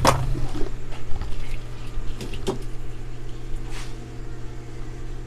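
A CRT TV circuit board being handled: a sharp click at the start, then a few scattered knocks and taps, with a brief soft hiss near the end, over a steady low hum.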